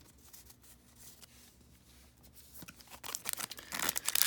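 Faint clicks of baseball cards being handled. About three seconds in, a card pack's plastic wrapper starts crinkling loudly.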